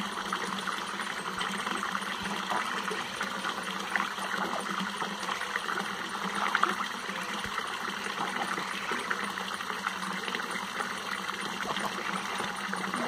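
Water running from a tap in a thin stream into a concrete trough full of water, a steady pouring splash. A few small splashes from ducks bathing in the trough come through it, the loudest about six and a half seconds in.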